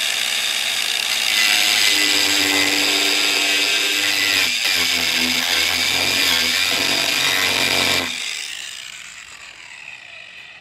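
Angle grinder fitted with a domed tungsten grinding wheel, running loud and grinding into a wooden post, its whine shifting in pitch as it bears on the wood. About eight seconds in it is switched off and winds down, fading away.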